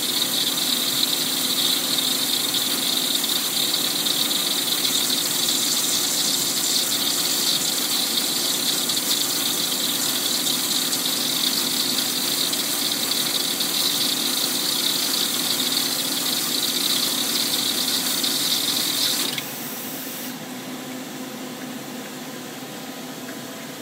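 Mitsubishi FX10 wire EDM's automatic wire threader working: a steady hiss from its water jet and pump. The hiss drops sharply about 19 seconds in, leaving a quieter machine hum.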